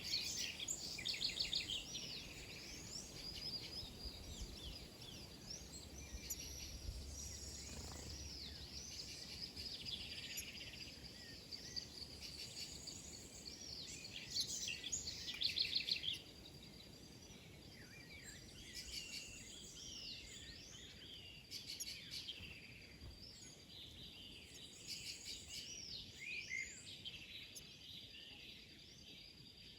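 A flock of small birds chirping and calling together, many short overlapping chirps with rapid buzzy trills, loudest near the start and about halfway through, over a steady faint high-pitched tone.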